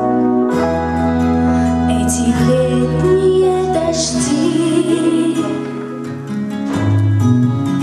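A woman singing a slow song over sustained instrumental chords.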